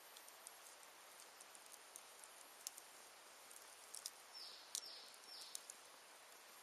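Wood fire burning softly, crackling with scattered sharp pops of varying strength over a faint hiss. Three short high-pitched falling notes sound in quick succession about four to five and a half seconds in.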